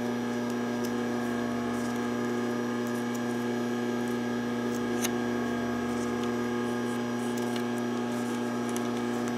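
Steady electrical mains hum, with a few faint clicks of scissors snipping loose threads, the clearest about halfway through.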